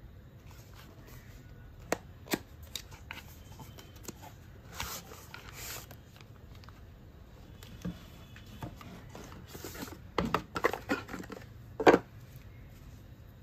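Cardboard box and paper leaflets handled during an unboxing: sharp taps and knocks of the card, a brief rustle as the inner tray and plastic-wrapped pouch are slid out, then a quick cluster of knocks and paper handling near the end, the loudest knock just before it ends.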